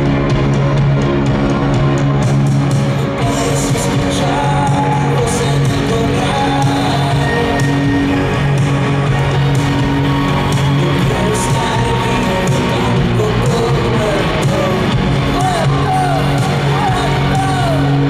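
Live rock band playing in a large hall: electric guitar, drums and keyboards over a steady low sustained chord, with singing.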